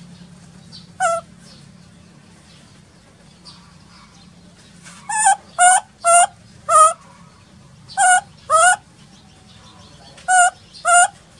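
Baby monkey crying: short, high-pitched cries, a single one about a second in, then a quick run of four and two pairs, nine in all.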